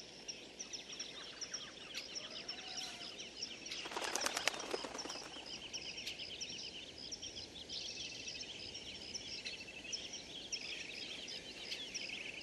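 Rainforest ambience of many small high chirping calls repeating steadily. About four seconds in comes a louder, rapid rattling call lasting about a second.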